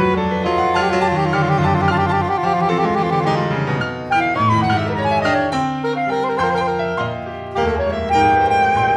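Contemporary chamber music for soprano saxophone and two pianos. Held saxophone notes, some wavering rapidly, sound over struck piano chords, with piano attacks coming more thickly in the second half.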